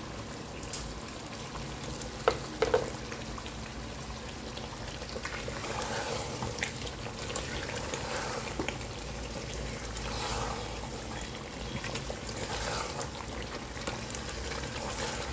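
Chicken curry simmering in a pot on the stove, with a couple of sharp knocks about two seconds in; near the end a wooden spatula stirs through it.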